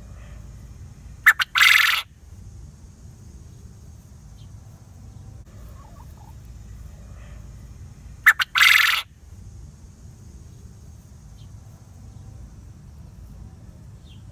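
Coturnix quail crowing twice, about seven seconds apart, each crow two short sharp notes followed by a longer loud one, over a steady low hum.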